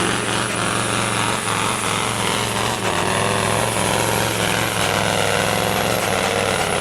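Super sport pulling truck's diesel engine running hard at steady revs under load during a pull, with a thin high whistle above it.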